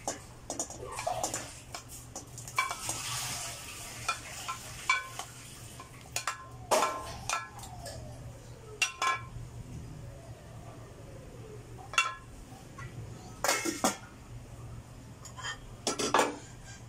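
Irregular knocks and clinks of kitchen cookware: a glass container against a stainless steel pot as chayote wedges are added, a wooden spoon stirring and knocking in the pot, and a cluster of clanks near the end as a metal lid goes on. A steady low hum runs underneath.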